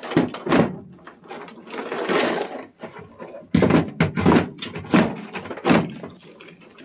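Hammer knocking on a car's steel floor pan through dry ice to crack off frozen asphalt sound-deadening mat: two knocks near the start, a stretch of cracking and scraping as brittle pieces are pried loose, then about five more knocks in quick succession. The dry ice has made the deadening brittle enough to shatter and come up.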